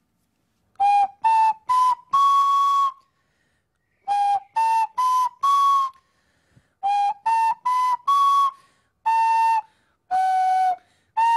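A recorder played through the nose: a phrase of quick rising notes ending on a held note, played three times, then four longer notes that dip and rise again. Each note carries an airy hiss.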